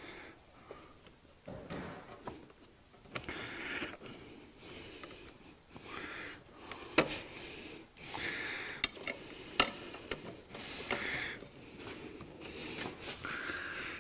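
Hands fitting plastic and rubber air-intake parts back onto a small generator engine: irregular rubbing and scraping with a few sharp clicks, the loudest about seven seconds in and another near ten seconds.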